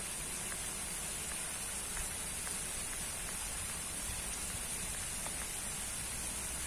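Steady splashing of water from a row of pond aerator jets spraying up and falling back onto the pond surface.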